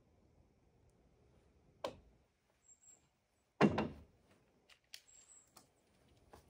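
A sharp knock, then about a second and a half later a louder, heavier thump that dies away briefly, followed by a few light clicks and knocks.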